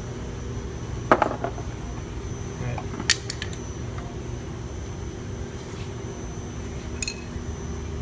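A few sharp metallic clicks and clinks of small hand tools at a car door panel, the loudest about a second in and others near three and seven seconds, over a steady low hum.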